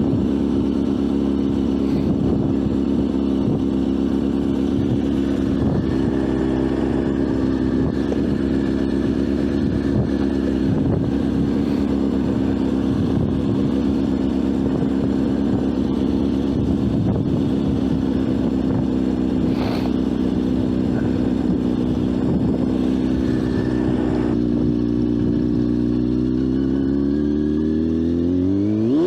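Motorcycle engine running steadily at an even pitch, then revving up sharply near the end, its pitch climbing quickly.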